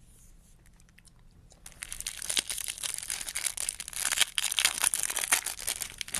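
Foil wrapper of a Topps Chrome baseball card pack crinkling and tearing open, a dense crackle that starts about two seconds in.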